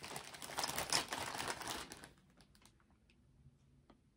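Clear plastic zip-top bag crinkling as hands rummage through the watches inside it. The crinkling stops about two seconds in, leaving a few faint light clicks.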